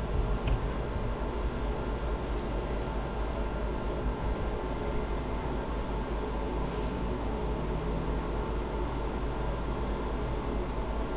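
Laser tattoo-removal equipment running steadily: a constant airy whir over a low hum, with a few steady tones.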